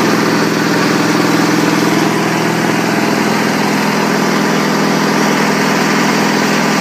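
Bolens HT 20 garden tractor's engine running steadily.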